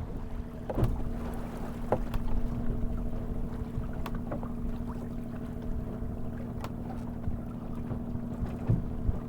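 Flow 19 sailboat under way in strong wind: wind and water noise over a steady hum, with a few short sharp knocks.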